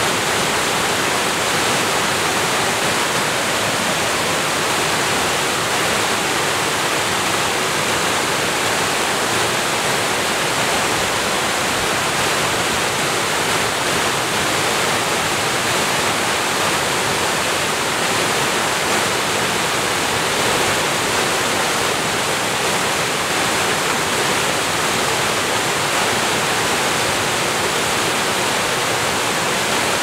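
Multi-tiered mountain waterfall cascading over rock ledges into a rocky stream: a steady, even rush of falling water.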